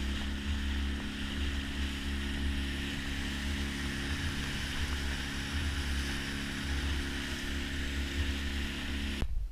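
Small outboard motor running steadily at cruising speed, driving an open fishing boat, with the rush of water and wind along the hull. It stops abruptly near the end.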